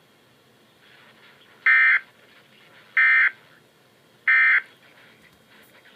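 Three short, harsh, buzzing data bursts about 1.3 s apart: the Emergency Alert System's end-of-message code, sent three times to close the severe thunderstorm warning.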